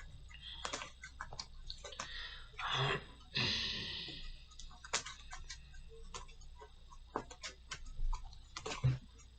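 Trading cards being handled on a table: a scatter of light taps and clicks as cards are set down and moved. Brief sliding, rustling sounds come about two to four seconds in.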